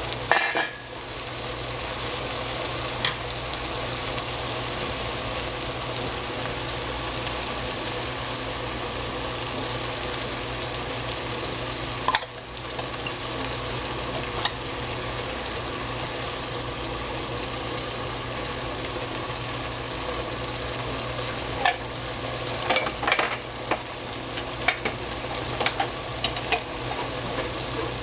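Pork, eggplant and squash in coconut milk sauce sizzling steadily in a pan, over a steady low hum. A knock comes right at the start, and a run of spatula knocks and scrapes against the pan comes in the last few seconds as the dish is stirred.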